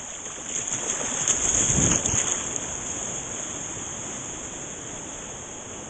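Small breaking wave and its whitewash rushing through shallow water, swelling to its loudest about two seconds in, then easing to a steady wash.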